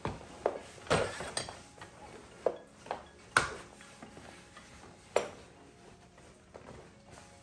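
Baby play yard's frame and fittings clicking and clacking as the second level is fitted into it: a run of sharp clicks and knocks, loudest about three and a half seconds in and again a little after five seconds.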